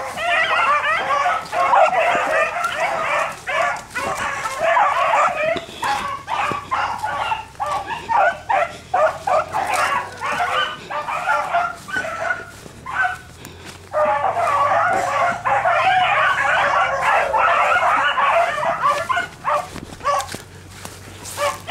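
A pack of rabbit hounds baying as they run a rabbit, many voices overlapping in full cry. The chorus thins to scattered single calls for several seconds in the middle, then swells again about fourteen seconds in before thinning once more near the end.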